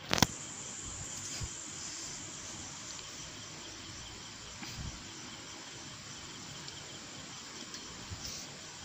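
Hot oil sizzling steadily in a kadai as garlic cloves, a green chilli, mustard seeds and cumin fry for a tempering, with scattered small crackles. A single sharp knock sounds just after the start.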